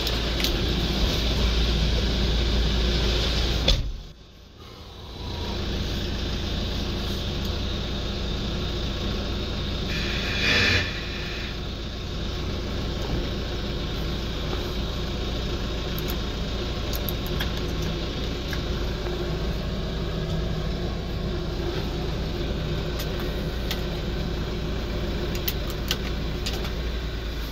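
Hyundai Porter II's diesel engine idling steadily, heard from inside the cab. About four seconds in there is a sharp thump, the sound drops away and the idle returns over a couple of seconds, and a short hiss-like burst comes near the eleven-second mark.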